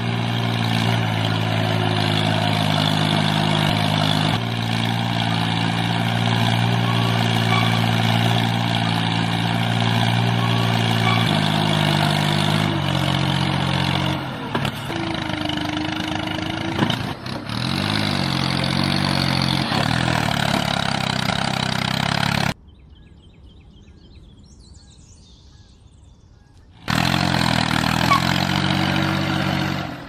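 Tractor engine running with a low steady drone whose pitch shifts a few times. It drops away for a few seconds past the middle and comes back near the end.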